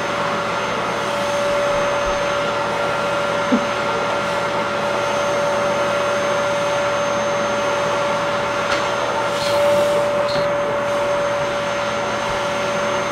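Vacuum cleaner running steadily through its hose and brush attachment as the brush is drawn over a cat's fur, with a constant whine over the rush of air. A brief click about three and a half seconds in.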